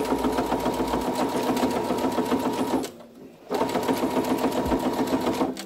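Electric sewing machine stitching along a zipper in oilcloth at a fast, even pace. It stops briefly about three seconds in, runs again, and stops near the end.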